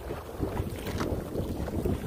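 Wind buffeting the microphone on a kayak out on open water: an uneven low rumble with no steady motor tone.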